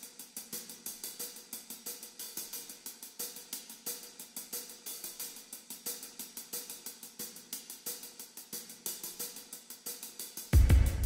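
Logic Pro X Drum Kit Designer sampled hi-hat playing a fast, even pattern of short strokes. About half a second before the end, a loud, deep electronic kick drum comes in with a booming low tail.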